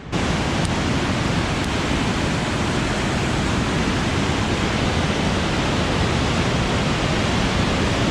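Fast-flowing river rushing in a strong current: a loud, steady roar of water.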